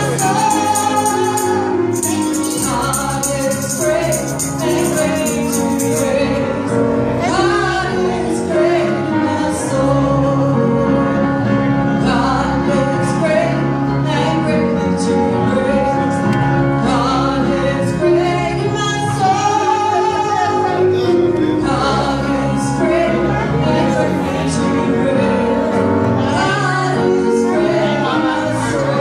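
Gospel music: a choir and a woman's voice singing over band accompaniment, continuous and loud.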